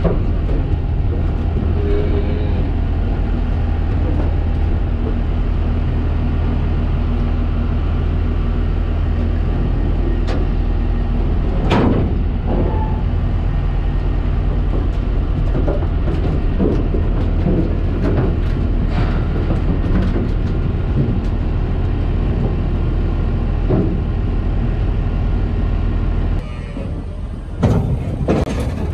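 A steady low machine drone, an engine or motor running, with scattered knocks and clatters over it. About 26 seconds in, the drone drops away, and a few louder knocks follow near the end.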